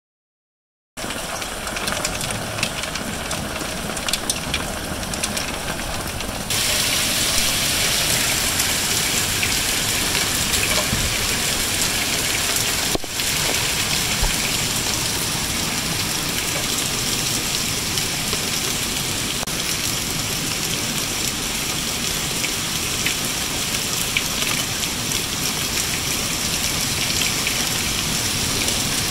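Heavy rain pouring down, a steady dense hiss of water. About six seconds in it gets louder and hissier.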